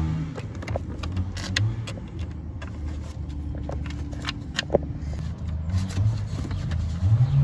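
Scattered sharp clicks and light rattles of hand tools and plastic steering-column trim being worked loose, over a low steady drone.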